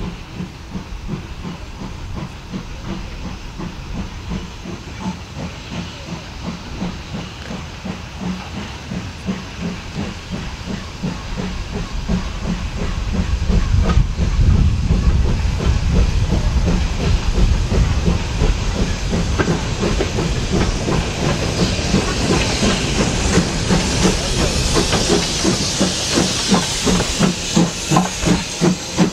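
BR Standard Class 2 2-6-0 steam locomotive approaching and passing close, its exhaust chuffing in a steady rhythm that grows louder as it nears. A strong hiss of steam joins in over the last several seconds as it goes by.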